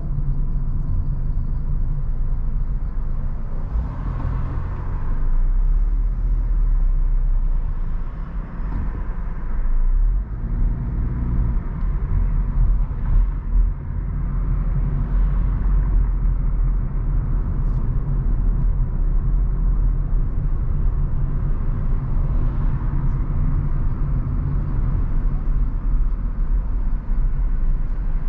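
A car driving on a city street, heard from inside the cabin: a steady low rumble of engine and road noise.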